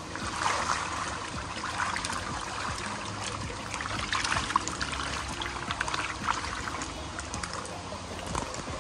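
Water splashing and trickling, with a close, irregular crackle of small splashes.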